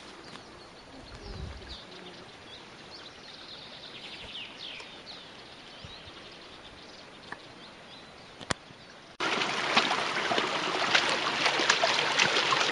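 Birds chirping faintly over quiet woodland ambience. About nine seconds in, the rushing and splashing of a small brook close by starts abruptly and runs on steadily.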